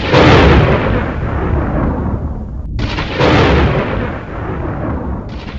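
Thunderclaps, each starting suddenly and rolling away over a couple of seconds: one at the start, a second about three seconds in, and a third near the end.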